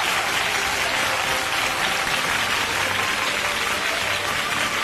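Studio audience applauding, a steady dense clatter of many hands clapping.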